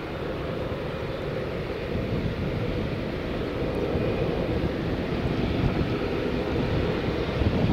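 Boeing 787-9 jet engines running at low thrust as the airliner rolls into position on the runway, a steady rumble that slowly grows louder.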